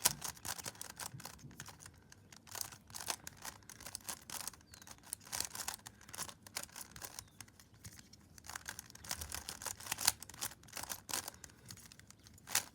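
3x3 speed cube being turned by hand: quick, irregular plastic clicks and clacks of its layers turning.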